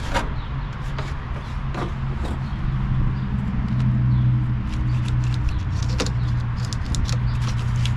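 Mower wiring being wiggled and handled by hand in a wiggle test, hunting for a broken wire: a few sharp knocks and small rattling ticks. Under them runs a steady low mechanical hum.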